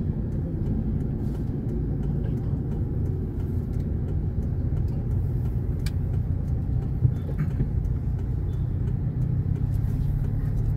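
A car's engine and road noise, heard from inside the cabin while it drives slowly: a steady low hum, with a single small click about seven seconds in.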